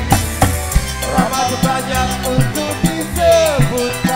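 Live dangdut band playing a fast instrumental passage, with kendang hand drums and a drum kit striking a busy beat under a melody line.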